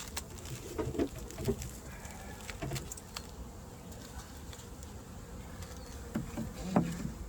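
Honeybees buzzing around an open hive, with a few short knocks and clunks as hive parts are handled, the loudest near the end.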